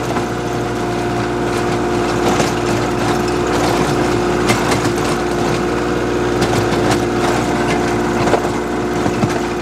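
Kioti compact diesel tractor running steadily under load while its PTO-driven three-point rotary tiller churns dry clay soil, with scattered sharp clicks and knocks from clods and stones in the tiller.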